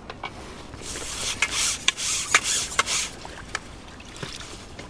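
Fixed-spool fishing reel being wound in hard while playing a hooked fish on a feeder rod: a scratchy rubbing sound with a sharp tick about every half second. It is loudest from about a second in to about three seconds, then fades to a few quieter ticks.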